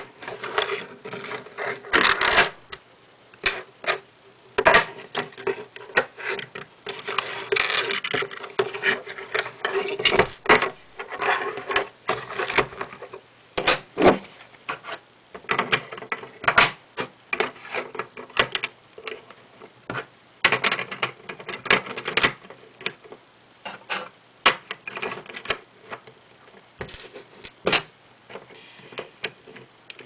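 Plastic Lego bricks being handled and pulled apart: irregular sharp clicks and clacks of brick on brick and on the tabletop, with short sliding and scraping rubs between them.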